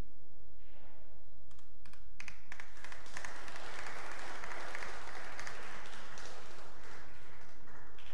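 Small audience applauding: a few scattered claps about a second and a half in build into steady applause, which dies away near the end.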